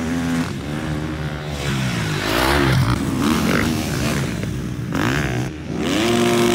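Motocross dirt-bike engines revving hard, the pitch climbing and falling again and again as the throttle is worked, with a quick climb to a held high rev near the end.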